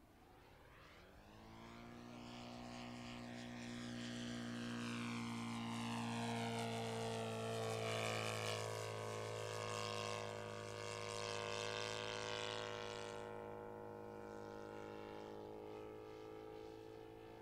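Saito FG57TS four-stroke twin-cylinder gas engine and propeller of a model aerobatic biplane running steadily in flight. It grows louder as the plane comes closer, is loudest about eight seconds in, then fades as it moves away.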